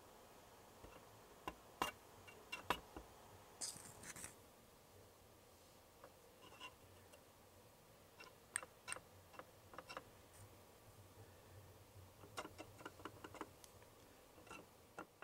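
Wooden stick tapping and scraping against a plastic toy mold and cup while pink batter is spooned into the mold's holes: scattered small clicks in loose clusters, with a short scratchy rustle about four seconds in.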